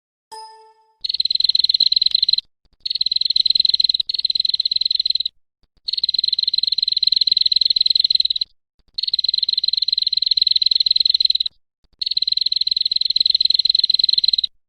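An animal's rapid, high buzzing trill, repeated in five bouts of about one and a half to two and a half seconds each with short pauses between, after a brief low call at the very start.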